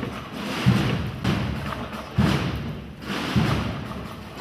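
Drums of a Holy Week procession band: a slow, steady bass drum beat, about four strokes a little over a second apart, with lighter drums rattling along with it.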